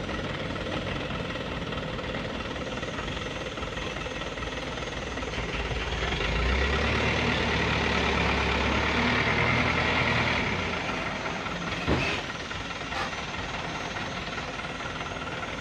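Diesel dump truck engine running, growing louder for about four seconds in the middle as the truck moves close past, then easing back to a steady drone. A single sharp knock about twelve seconds in.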